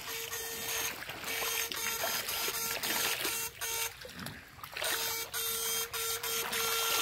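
Backpack electrofishing rig giving off a steady electrical buzz that cuts out briefly several times and comes back, with a longer break near the middle, as the current to the poles in the water goes on and off. Shallow creek water trickles underneath.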